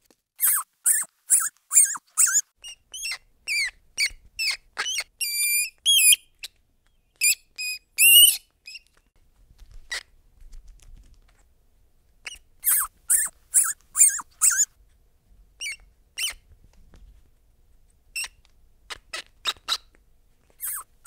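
Rodent squeaking: high-pitched squeaks in quick runs of short chirps, with pauses between the runs and a few scattered single squeaks near the end.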